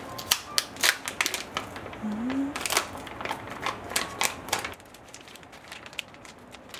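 Plastic film food pouch crinkling and crackling as it is pulled open and handled, a rapid run of sharp crackles that thins out about five seconds in.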